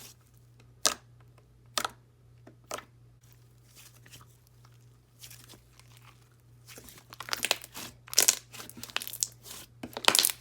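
Thick, clicky jelly slime being squished and stretched by hand: a few sharp clicks about a second apart, then a denser run of crackling pops and squelches in the second half.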